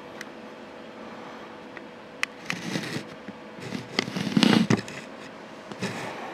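Handling noise from a handheld camera being moved: scattered clicks and rustling bumps, loudest about four seconds in, over a faint steady hum.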